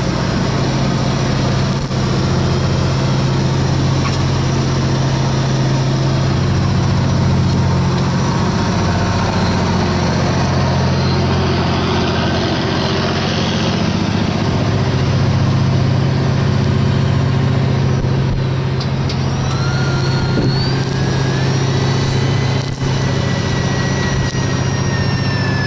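The fishing boat's engine running with a steady low hum. Near the end a thin whine rises in pitch and then holds steady.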